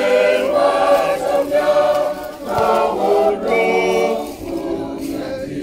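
Choir singing, a run of held sung phrases with short pauses between them.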